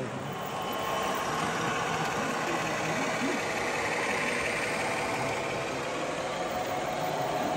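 Model trains running along the layout's tracks: a steady running noise with faint steady whining tones from the trains' motors.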